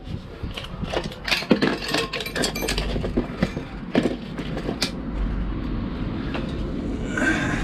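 Knocks and clinks of a drain jetter hose being pushed into a blocked branch pipe inside a concrete manhole, over the low steady hum of a running engine. From about five seconds in, the knocks stop and a steady mechanical running noise takes over.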